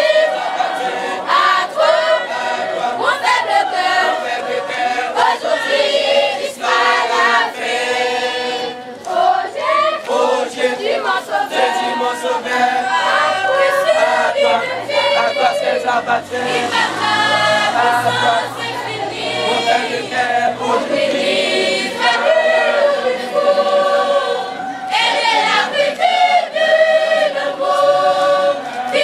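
Baptist church choir of many voices singing a gospel hymn together as it files past in procession.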